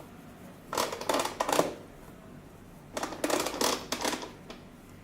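Two short bursts of clicking and knocking from the head unit's adjustable screen mount as the 12.8-inch panel is moved to a new angle, one about a second in and a longer one about three seconds in.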